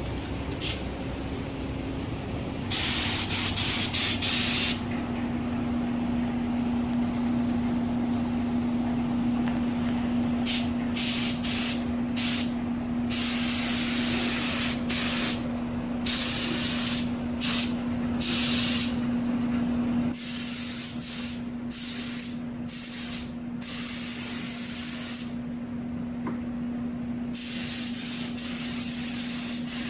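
Paint spray gun with a 1.8 tip shooting thick primer: air hissing in a series of trigger pulls lasting one to a few seconds each, with short breaks between passes, over a steady low hum.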